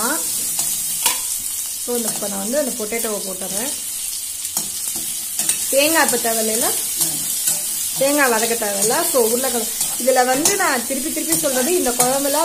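Chopped vegetables sizzling in hot oil in a steel kadai while a perforated steel spatula stirs and scrapes around the pan. The metal-on-metal scraping comes in runs of a second or two, with a squeal that wavers in pitch.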